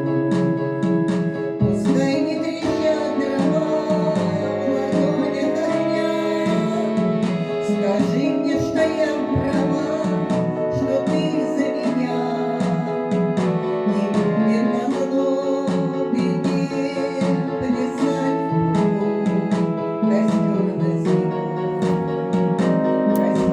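Song accompaniment: acoustic guitar playing with sustained keyboard notes, with little or no clear sung words.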